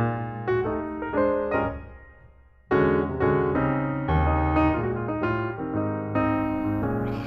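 Background piano music, a run of separate notes. It fades away about two seconds in and starts again strongly shortly after.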